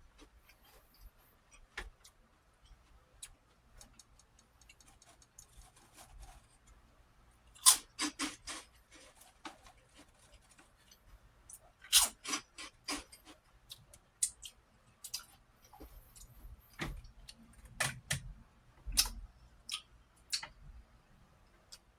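Prawn crackers being crunched and chewed close to the microphone: sharp, crisp crunches in short runs, loudest about eight and twelve seconds in, with scattered quieter crackles between.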